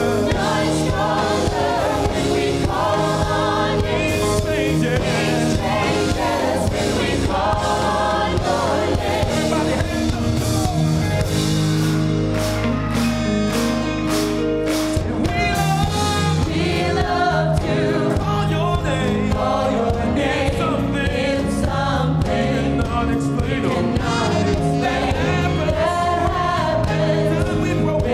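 Live gospel worship music: a group of singers, men and women, singing together into microphones over a live band with drums and electric guitar.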